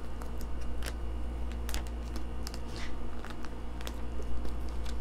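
Thin plastic shrink-wrap crinkling and crackling in scattered sharp snaps as it is peeled off a phone box, with a steady low hum underneath.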